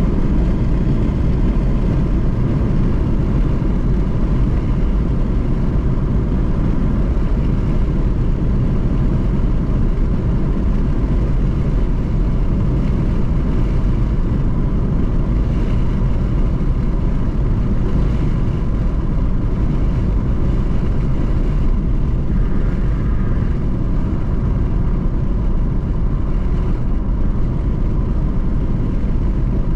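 Car driving at highway speed, heard from inside the cabin: a steady, low rumble of road and engine noise.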